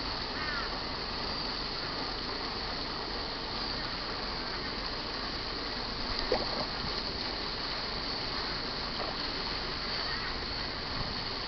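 Water splashing briefly about six seconds in as a moorhen and an eel scuffle at the pond surface, over a steady background hiss with a few faint bird chirps.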